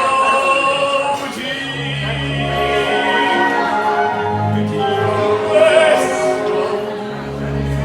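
Music with a singing voice holding long notes over a slow bass line.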